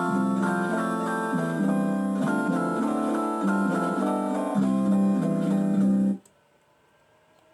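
Mock emergency alert alarm tone: a run of loud guitar-like plucked chords, changing about every half second, that cuts off abruptly about six seconds in, leaving near silence.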